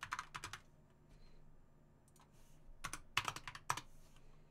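Typing on a computer keyboard: a quick run of keystrokes at the start and a second run about three seconds in, with a pause between.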